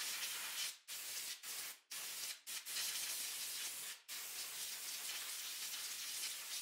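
Compressed-air blow gun hissing in a run of blasts with about five brief breaks, blowing dirt off a motorcycle's rear brake master cylinder and brake line fittings before the line is loosened.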